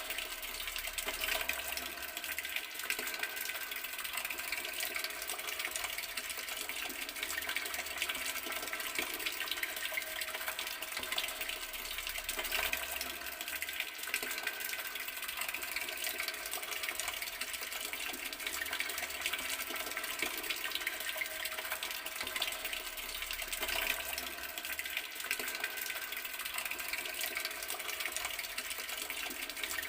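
Garden water tap running, the water pouring in a steady, unbroken stream.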